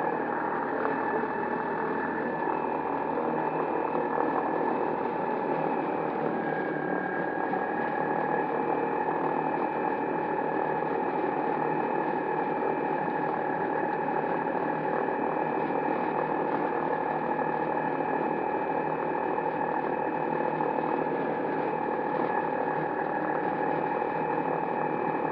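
Electric ultralight's motor whining steadily as it taxis, with a constant rush of noise beneath the whine.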